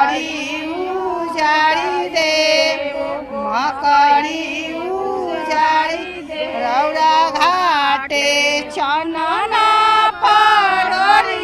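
A woman's voice singing a Chhath devotional folk song, with long held notes that bend up and down.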